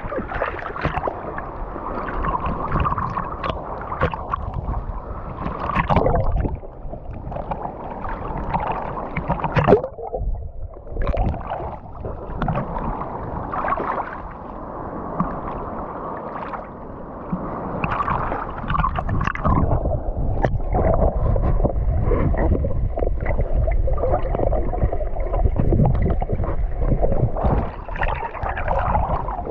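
Sea water sloshing and splashing close to the microphone, coming in uneven surges.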